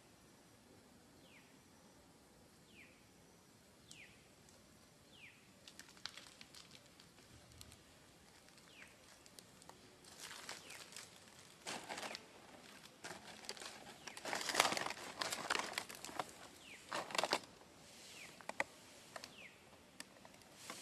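Dry leaves crackling and rustling in irregular bursts, loudest in the second half, as a macaque moves over leaf-strewn ground. Earlier comes a run of short high chirps, each falling in pitch, about one every second or so.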